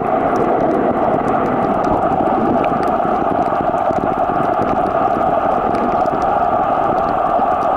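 Steady, even rushing noise of a camera recording underwater in the sea, with faint scattered clicks.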